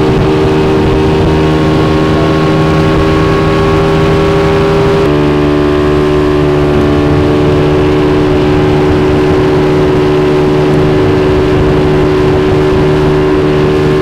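Motorboat's outboard engine running steadily at cruising speed, its pitch stepping down slightly about five seconds in.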